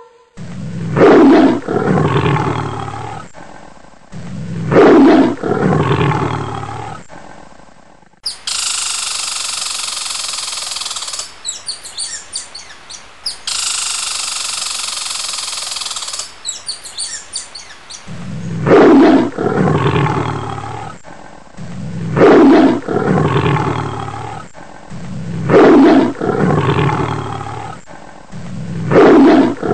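Lion roaring in a series of loud roars, one about every three and a half to four seconds, each starting strong and fading. In the middle of the stretch the roars give way for about ten seconds to a steady hiss with chirping.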